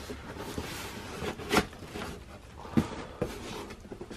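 Cardboard scraping and rustling as a sneaker shoebox is pulled out of its cardboard shipping box, with a few light knocks, the sharpest nearly three seconds in.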